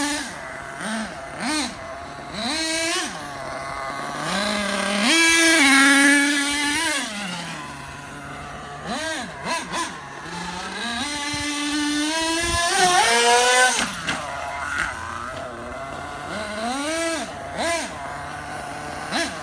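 Dynamite .28 nitro engine in a Losi 8ight-T RC truggy, revving up and dropping back to idle in repeated throttle bursts, with a couple of longer full-throttle runs about five seconds in and again around thirteen seconds. The engine is being run in near the end of its break-in.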